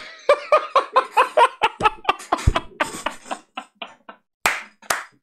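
A man laughing hard in a fast run of short 'ha-ha' bursts that fade out, with a single thump about halfway through and breathy gasps near the end.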